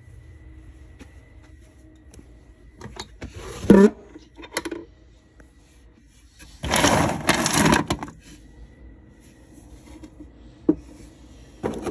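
Plastic Littlest Pet Shop toy figures being rummaged through and handled, rustling and clattering, with scattered small clicks. The loudest stretch is a burst of about a second and a half, about seven seconds in.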